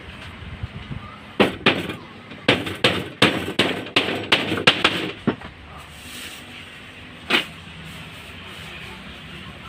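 Hammer blows tacking a wooden molding strip onto a plywood boat panel with nails: a quick run of sharp strikes, about three a second, then a single blow a couple of seconds later.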